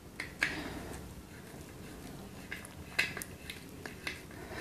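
Faint, scattered clicks and scrapes of a flat screwdriver turning in the adjuster screw of a sealed motorcycle horn, which is being tightened all the way in before tuning.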